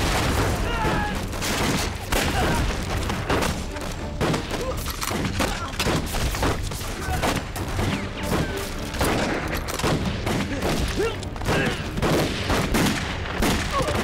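Street-battle gunfire: many shots in rapid, unbroken succession, mixed with booms from blasts.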